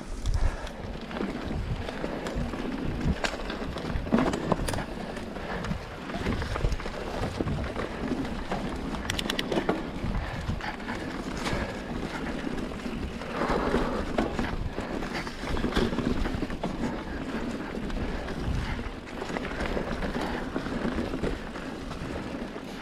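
Mountain bike ridden along a dirt trail: tyres rolling and the bike rattling and knocking irregularly over bumps.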